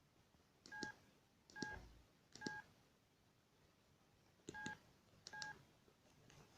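Keypad of a Siemens C62 mobile phone being pressed five times. Each press gives a click and a short two-tone keypad beep: three presses come just under a second apart, then two more after a pause of about two seconds.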